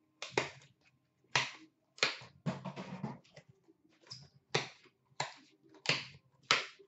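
Trading-card packaging and cards being handled on a counter: about a dozen irregular sharp clicks and snaps, with a short rustle a little over two seconds in.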